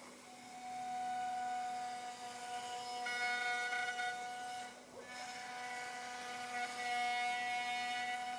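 CNC router spindle whining at a steady pitch as it makes a facing pass across a hardwood board. The loudness swells and fades, with a brief dip about five seconds in.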